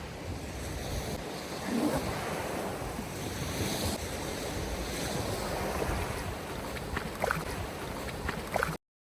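Surf breaking on a beach and strong wind buffeting the microphone, with a few short sharp clicks or squeaks near the end before the sound cuts off abruptly.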